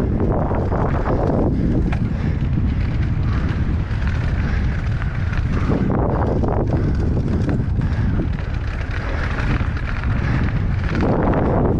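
Heavy wind rush on a helmet-mounted camera's microphone as an enduro mountain bike descends at speed, with the rumble and rattle of the bike running over a dirt trail.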